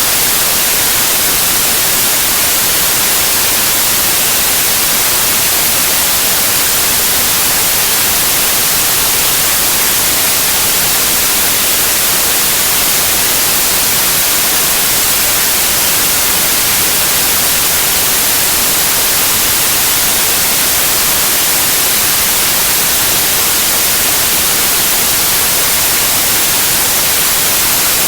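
Steady, loud white noise: an even hiss, brightest in the highs, that doesn't change.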